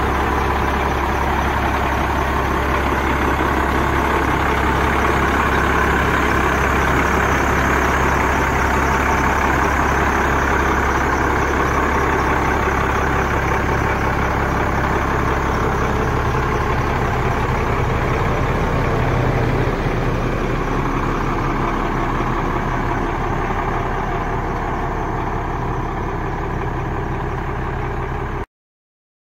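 1994 Ford L8000 diesel truck engine idling with a steady low drone, growing a little fainter after about twenty seconds and cutting off suddenly near the end.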